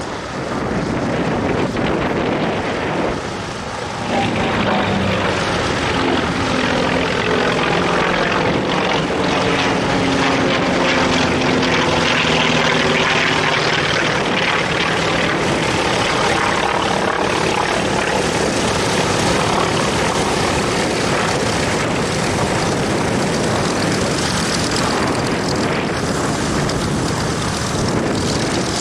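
Consolidated PBY-5A Catalina's twin radial engines and propellers running as the aircraft passes, the engine note falling in pitch as it goes by.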